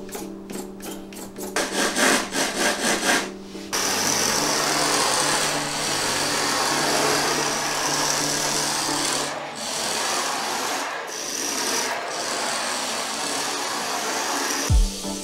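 Small 1/24-scale RC drift car (a converted WLtoys K969 with a brushless motor) running on a hard board: rapid pulsing for the first few seconds, then from about four seconds in a steady rasping hiss of the tyres scrubbing and sliding across the surface as it drifts.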